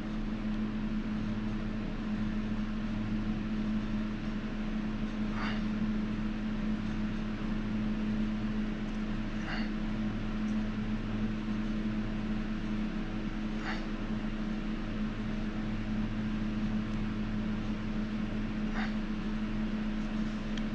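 Steady low machine hum, even in pitch and level throughout, with four faint light clicks spread a few seconds apart.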